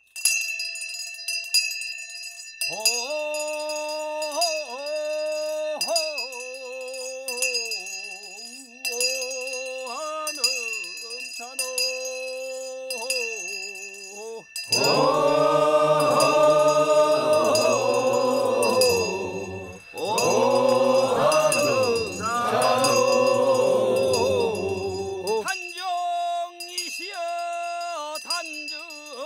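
Korean traditional funeral-style chant: a solo melodic line with wavering, sliding pitch, then a loud passage of many male voices from about halfway in until near the end, then the solo line returns. A steady high ringing tone runs underneath.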